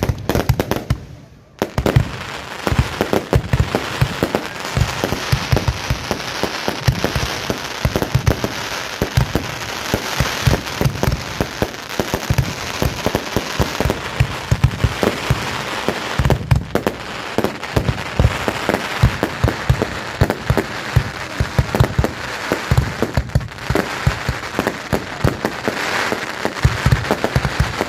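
Fireworks going off in a dense, continuous barrage of rapid bangs with crackling between them, after a brief lull about a second in.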